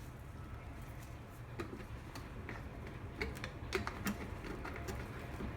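Scattered light clicks and taps of cookware and utensils being handled over a pot of raw rice, faint and irregular, coming more often after the first second and a half.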